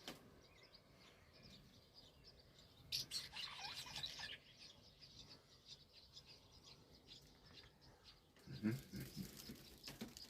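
Swallows twittering and chirping faintly, with a louder burst of quick gliding twitter notes about three seconds in. A few low thumps near the end.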